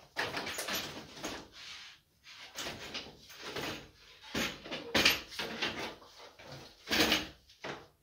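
Wooden cot parts knocking and scraping together as a slatted side panel and the base are handled and fitted into the crib frame, with sharper knocks about five and seven seconds in.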